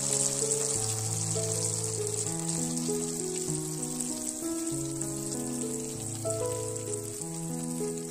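Penyaram batter deep-frying in a wok of hot oil: a steady high sizzle of bubbling oil, under background music of slow, held notes.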